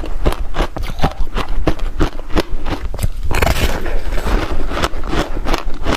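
Close-miked crunching of a block of ice coated in passion fruit pulp, chewed in rapid crunches about five a second. A denser, longer crunch of a fresh bite comes a little past three seconds in.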